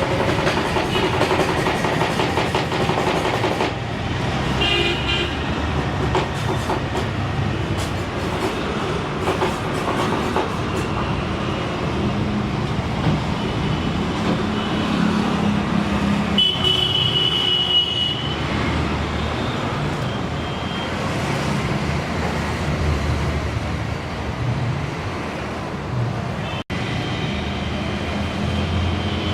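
Steady rumble of vehicle noise, with short horn toots a few times, about 5 seconds in, around the middle and near the end.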